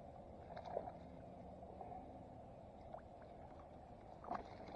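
Faint water swishing along the hull of a moving kayak, with a few faint ticks.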